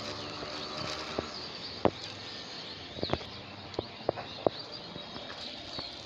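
A plastic bag of litter handled in a plastic-gloved hand, giving a few sharp clicks and crackles, about six in all, over a steady outdoor hiss with faint bird chirps.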